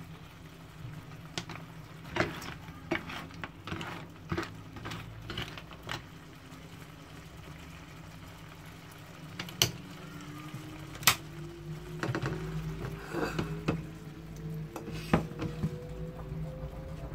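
A spoon and cooked mussel shells clinking and knocking against a pan, a string of sharp separate clicks, over a steady low hum. From about ten seconds in, a faint tone rises slowly in pitch.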